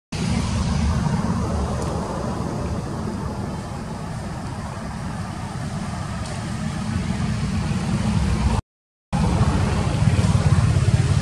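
Steady outdoor rumble and hiss, heaviest in the low end, with a drop to silence for about half a second some eight and a half seconds in.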